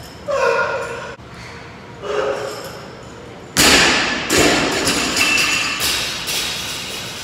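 A 65 lb barbell clean: about three and a half seconds in, a loud thud as the lifter drops into the squat catch, her feet hitting the platform and the bar landing in the front rack. It is followed by several smaller knocks and a ringing rattle from the bar and bumper plates as she stands up.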